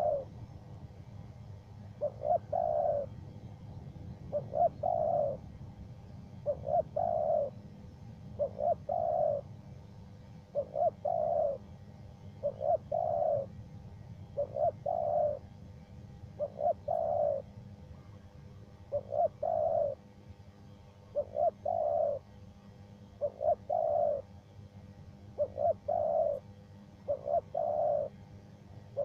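Spotted dove (tekukur) cooing over and over, a short phrase of a few notes repeated about every two seconds.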